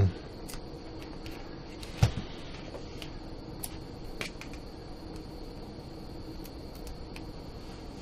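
A small electronics cooling fan hums steadily while USB plugs and cables are handled, pulled and pushed in, giving a few sharp plastic clicks, the loudest about two seconds in.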